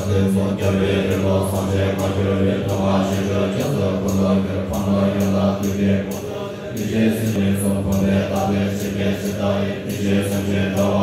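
A large group of Tibetan Buddhist monks chanting prayers together in a steady, deep, droning unison.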